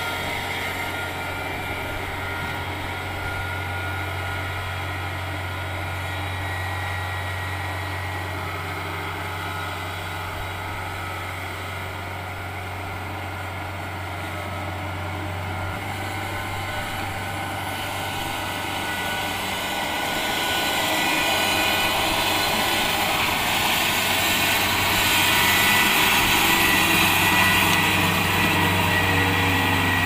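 Kubota DC-70 Plus rice combine harvester running: a steady diesel engine drone, which gets louder, with more high-pitched machinery whine, about two-thirds of the way in.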